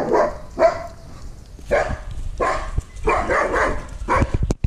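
A dog barking repeatedly in rough bursts, over low rumble from the moving camera, with a few sharp knocks near the end.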